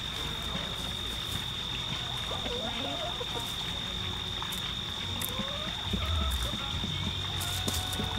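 Chickens clucking softly now and then over a steady high-pitched insect drone, with a low rumble about six seconds in.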